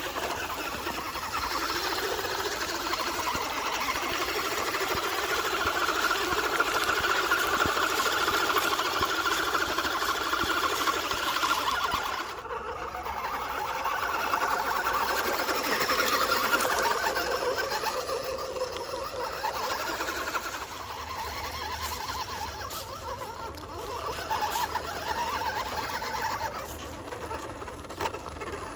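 Electric motor and gear drivetrain of a 1/10 scale 6x6 RC truck running, a whine that wavers with the throttle over a noisy background. It breaks off abruptly about twelve seconds in, then carries on.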